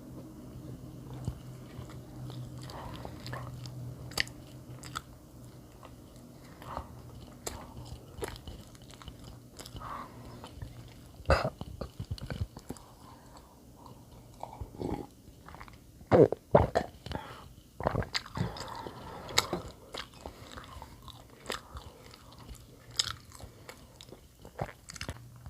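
A person chewing and biting bread close to the microphone: wet mouth sounds and scattered crunchy bites, loudest in the middle stretch.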